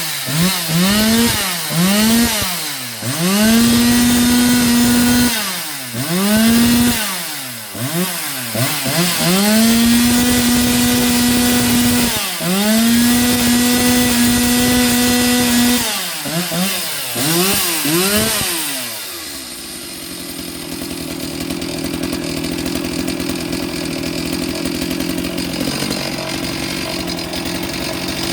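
Stihl 360 (MS 360) two-stroke chainsaw engine being revved. It is held at full throttle for a few seconds at a time, with repeated quick drops and climbs as the throttle is released and squeezed again. About nineteen seconds in it is let down to a lower, steady running note.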